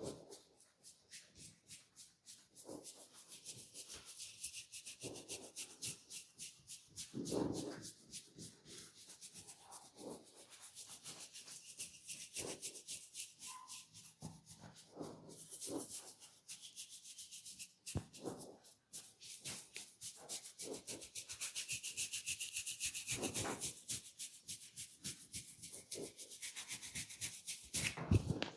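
Fingertips scratching a person's scalp through the hair: rapid, steady scratching strokes, with a few louder rustles, the strongest about seven seconds in.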